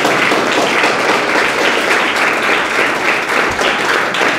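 A room full of people, mostly schoolchildren, applauding steadily.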